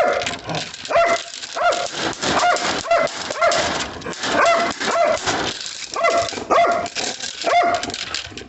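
A dog barking over and over in high, yelping barks, about two a second.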